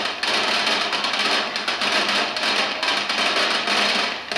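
Fireworks and firecrackers going off in a dense, unbroken barrage of rapid bangs and crackles, many a second.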